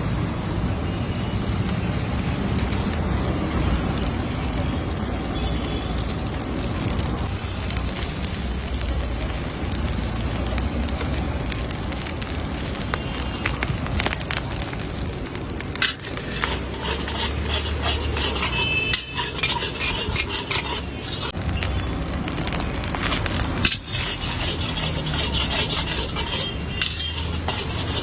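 Egg fried rice frying in a hot wok with a steady sizzle. About halfway through, a metal spatula starts scraping and clacking against the wok as the rice is stirred and tossed.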